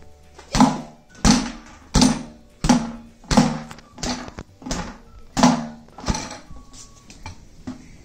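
A child's boxing gloves punching an inflatable pedestal punching bag in a steady rhythm. The punches come about nine times, roughly two every three seconds, and each lands as a hollow thump with a short boom. A few lighter knocks follow near the end.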